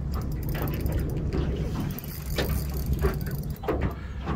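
Fishing reel being cranked, a run of quick mechanical clicks, over a steady low hum.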